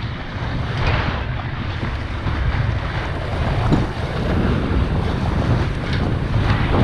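Wind buffeting the microphone, heavy and gusty, over water rushing past the hull of a sailboat under way.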